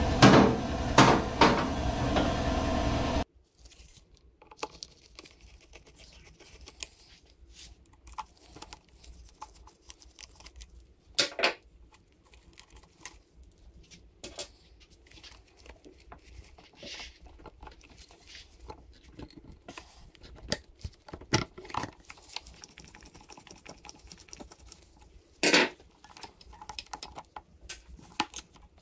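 Scattered small clicks, clinks and clunks of hand work on a Yamaha PW80's carburetor and its fittings, with sharper knocks about 11, 21 and 25 seconds in. It is preceded by a loud steady sound that cuts off abruptly about three seconds in.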